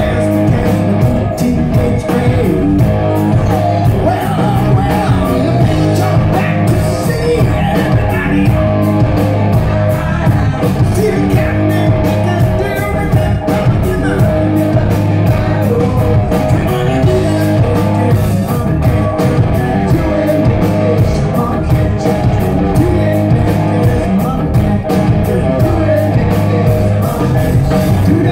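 Live rock band playing loudly: a man singing lead over electric guitars, electric bass and drums keeping a steady beat.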